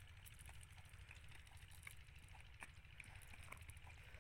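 Near silence: faint outdoor background with a low rumble and scattered soft ticks.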